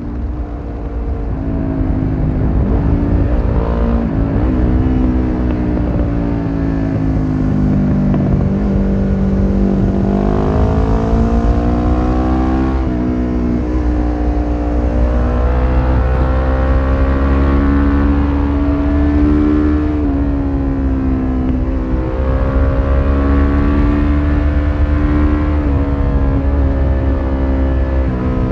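1993 Suzuki GS500E's air-cooled parallel-twin engine through a Takkoni slip-on exhaust with its dB killer fitted, under way on the move: the pitch climbs as the throttle is opened and drops back at gear changes and when the throttle is rolled off, with a steady low wind rush underneath.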